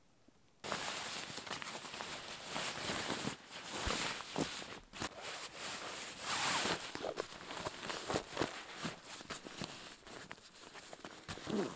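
Sleeping bag being stuffed and pressed down into its stuff sack: continuous fabric rustling and crinkling with small clicks, starting suddenly about a second in.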